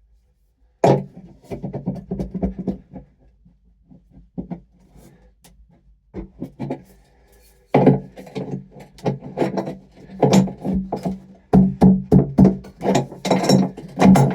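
Ratchet wrench clicking in rapid bursts with pauses between, as bolts are worked loose to take out a bar inside a car.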